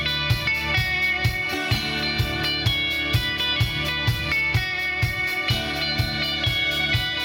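Live band playing an instrumental passage: electric and acoustic guitars over a steady beat of about two strokes a second.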